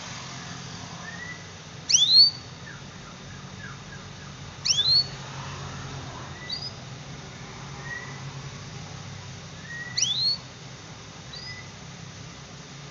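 Domestic canary giving sparse, sharp 'cuit' call chirps. Three loud ones come about 2, 5 and 10 seconds in, each a quick high downward sweep followed by a rising one, with softer short rising chirps between them. A steady low hum runs underneath.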